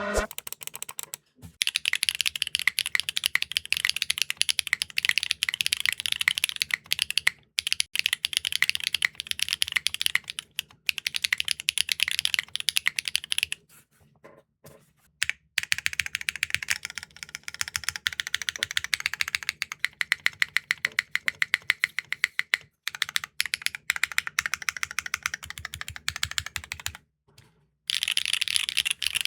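Fast, continuous typing on a Neo65 Core Plus mechanical keyboard fitted with clacky linear switches. The keystrokes come in dense runs broken by short pauses about a second in, near 7.5 and 10.5 seconds, near 23 seconds and near 27 seconds. A longer pause falls around 14–15 seconds.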